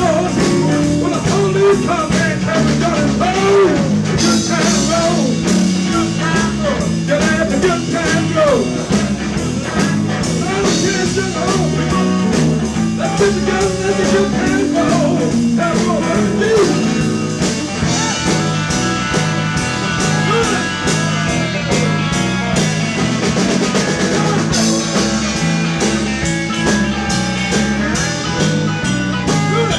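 Live electric blues band: amplified harmonica played into a microphone cupped in the hands, bending notes in the first half and holding steadier notes later, over electric guitar and a drum kit keeping a steady beat.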